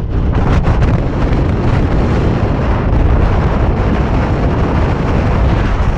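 Strong wind buffeting the microphone: loud, steady wind noise, heaviest in the low rumble.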